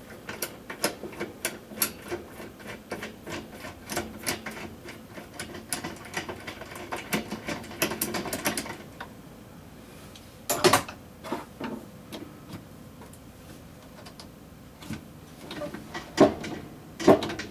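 Ratchet wrench on a socket extension clicking rapidly, several clicks a second, as the loose agitator bolt of a top-loading washer is unscrewed. A few louder knocks follow as the agitator is worked loose.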